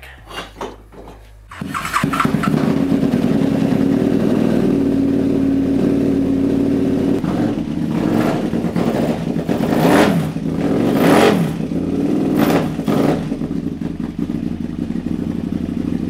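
KTM LC8 V-twin motorcycle engine from a 990 Adventure, breathing through a freshly fitted Rottweiler aftermarket intake, catches and starts about a second and a half in. It then idles, with several quick throttle blips between about eight and thirteen seconds in.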